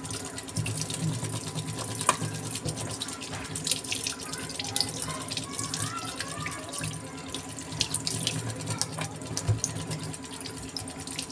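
Tap water running into a stainless steel sink as fish are rinsed and rubbed by hand, with scattered small clicks and rustles of handling and one sharper click about two seconds in.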